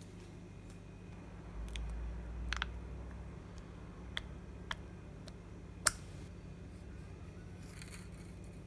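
Faint handling noises from fingers pulling and flexing a wire soldered to a small piece of aluminium drink can: a few small clicks and taps, with one sharper click about six seconds in, over a low steady hum.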